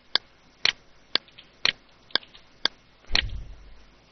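Computer mouse clicking at a steady pace, about two clicks a second, some as a quick double click, then pausing near the end. A dull low thump about three seconds in.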